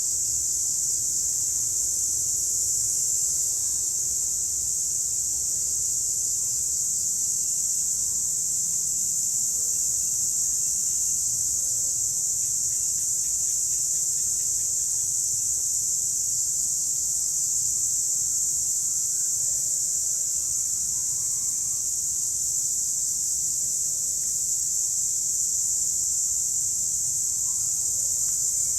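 A chorus of cicadas singing: a steady, unbroken high-pitched buzzing drone that holds an even level throughout.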